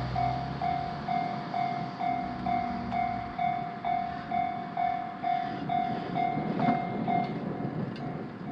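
Japanese level-crossing warning bell ringing a steady repeated ding, a little over twice a second, as a Suigun Line diesel railcar passes over the crossing with a rumble and wheel clicks that peak about six and a half to seven seconds in. The bell pauses near the end.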